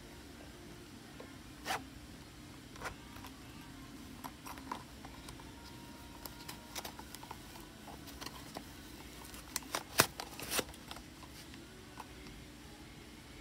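Zipper of a holographic plastic pouch being worked open by hand: scattered short clicks and rasps from the zipper and its metal pull, with the loudest few bunched together about ten seconds in.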